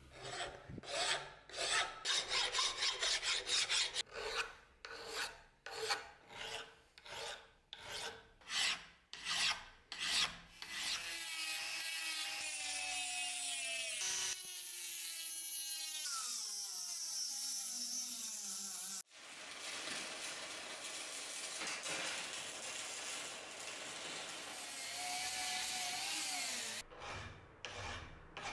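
Hand file rasping across the cast-iron vise body in quick, even back-and-forth strokes for the first ten seconds or so. Then a handheld rotary tool with a cut-off disc whines as it cuts the metal, its pitch dropping as it bites in, followed by steady cutting noise, and a few more file strokes near the end.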